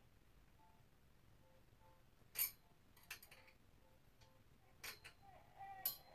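About four sharp metallic clicks as the steel rail and pipe fitting at the top corner of a Z-rack clothes rack are worked into place by hand, the first and last the loudest. A baby cries faintly near the end.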